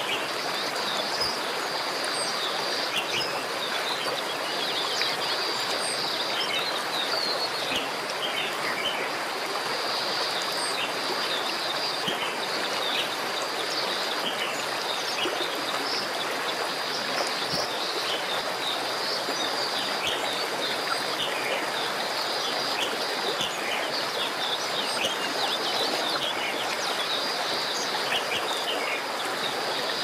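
Many short, high bird chirps scattered throughout, over a steady rushing noise like running water and a steady high-pitched tone.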